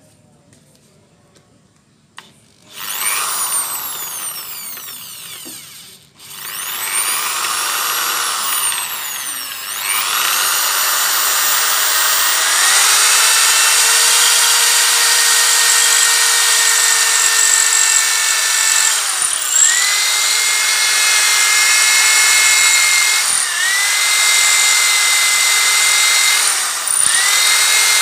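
NRT Pro 500HD corded electric drill boring through a 3 mm steel plate with a 5 mm HSS bit. The motor starts about three seconds in with a whine that slides in pitch, stops briefly, then starts again and runs at full speed. Its pitch dips a few times as the bit bites into the steel.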